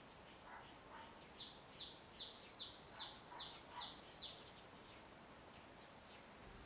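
A bird singing a quick run of about nine short, high notes, each sliding downward, a little over two a second, with fainter, lower calls before and among them.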